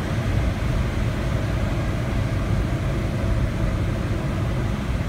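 Steady rush of airflow over the canopy of a Grob 103 two-seat glider, heard from inside the cockpit while gliding at about 57 knots. It is an even, low rumbling noise with no engine.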